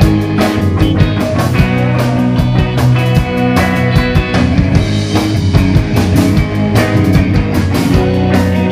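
Live rock band playing at full volume: electric guitar chords over a drum kit beat.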